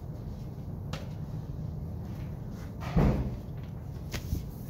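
A dull knock about three seconds in, with a light click before and another after it, over a steady low room hum.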